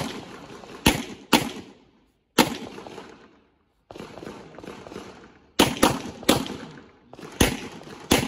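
Handgun shots fired by a shooter moving through a practical-shooting stage: about ten sharp reports, singly and in quick pairs, each with a short echo. There is a pause of about three seconds in the middle, as he moves between positions.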